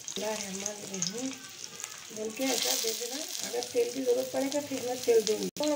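Stuffed bitter gourds sizzling in oil on a hot flat iron tawa as they are laid down one by one, with a voice talking under the sizzle.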